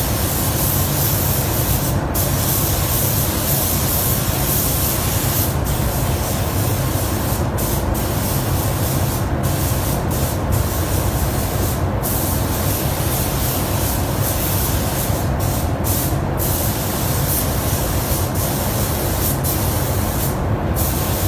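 Compressed-air paint spray gun hissing as it sprays paint onto a truck chassis. The hiss breaks off for a moment about a dozen times as the trigger is let go and pulled again, over a steady low rumble from the spray booth's ventilation.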